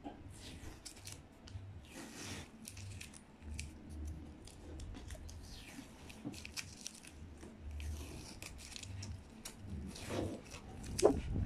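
Masking tape being peeled off the border of an oil painting on board, in a run of crackling, tearing noises and small snaps. A brief louder sound comes near the end.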